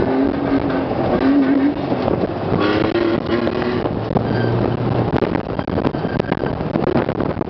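Toyota pickup race truck's 1GR-FE V6 engine running hard under load, its pitch rising and falling over and over as the truck is driven across the desert.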